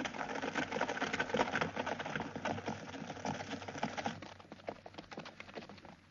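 Hooves of several horses galloping, a dense clatter of hoofbeats that thins out and grows fainter after about four seconds.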